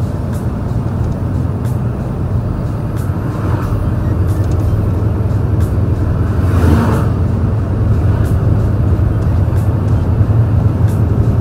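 Large truck's stock diesel engine running hard on a mountain climb, a steady low drone heard from the cab through a slightly open window. An oncoming truck passes with a brief rush of noise about two-thirds of the way in.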